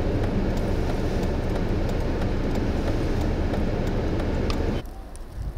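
Steady low rumble of highway traffic and wind in a snowstorm, which drops abruptly to a much quieter hush near the end.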